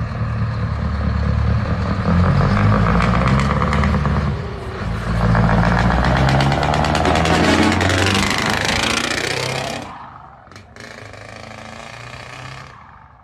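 Scania V8 truck engine pulling a loaded low-loader trailer past at close range, its exhaust note stepping and rising in pitch under heavy throttle. It fades sharply about ten seconds in as the truck moves away.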